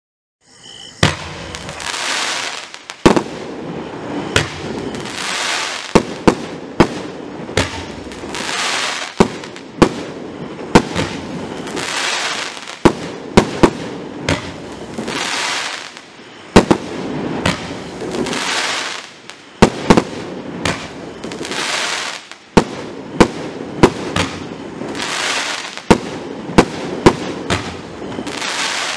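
Consumer firework compound cake (Evolution Fireworks 'The Branco', 108 shots of 30 mm) firing mines and bouquets: a rapid series of sharp shots, at times several a second, over a rushing hiss that swells and fades every couple of seconds. The firing starts about half a second in.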